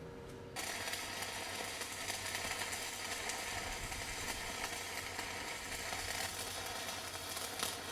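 Electric arc welding on a steel skid steer bucket edge: a steady, crackling sizzle of the arc that starts about half a second in and runs evenly, easing slightly near the end.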